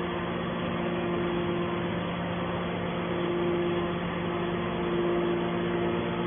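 Hydraulic scrap metal baler's power unit running with a steady hum.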